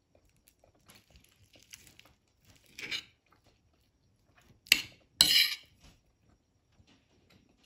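Metal fork scraping and clinking against a china plate while cutting a burger-steak patty and scooping rice. Light ticks and a short scrape come first; two sharp, louder scrapes about five seconds in are the loudest.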